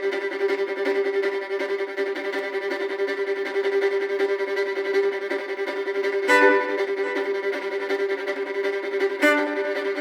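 Background music of long, held notes, changing to new notes about six seconds in and again near the end.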